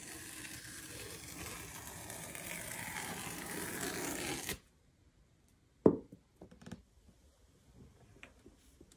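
Cardboard tear strip being ripped along the edge of an iMac box: a steady paper-tearing rip lasting about four and a half seconds that stops abruptly. After it come a single sharp knock and a few light taps.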